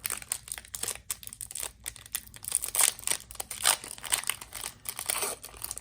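A trading card pack wrapper crinkling and being torn open, with many irregular crackly rustles.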